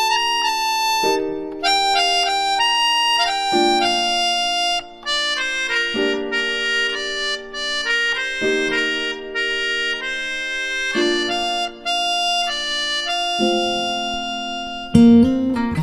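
Background music: a reedy wind instrument, harmonica-like, playing held chords with a melody over them, the chord changing about every two and a half seconds. A strummed acoustic guitar comes in near the end.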